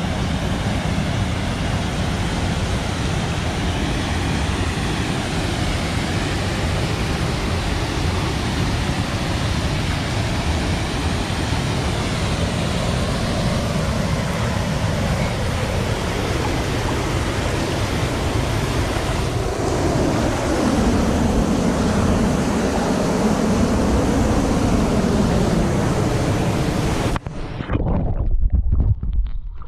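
Waterfall pouring into a pool, a loud steady rush of falling water heard from the water's surface. About 27 seconds in the sound suddenly turns muffled and low as the microphone goes underwater, with gurgling.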